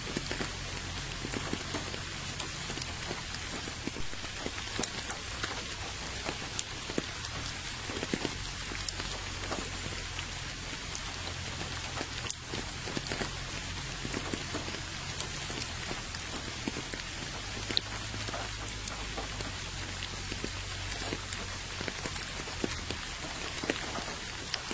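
Steady rain falling into a puddle and onto wet ground, with single drops ticking close by and now and then a louder drip.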